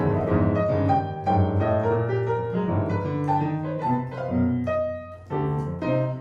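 Solo jazz piano playing, low bass notes under chords and a melody, with a brief pause about five seconds in before it goes on.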